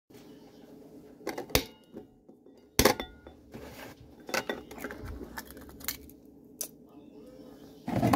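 Several sharp clicks and knocks of things being handled close to the microphone, the loudest about a second and a half and three seconds in, with softer handling noise between them.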